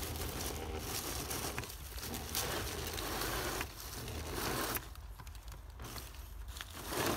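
Dry fallen leaves crackling and crunching under the tyres of an RC crawler truck as it crawls over the leaf litter. The crackling is quieter from about five seconds in.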